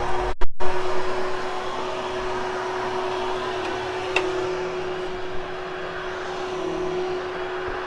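Hoover HushTone upright vacuum running steadily as it post-vacuums and grooms a carpet, a constant rushing hiss with a steady hum. There is a brief loud bump about half a second in and a small click about four seconds in.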